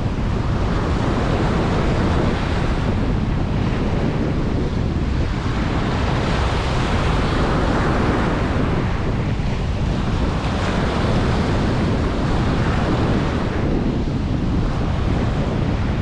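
Ocean waves breaking and washing up a beach, a continuous rush that swells and eases every few seconds, with wind buffeting the microphone as a low rumble.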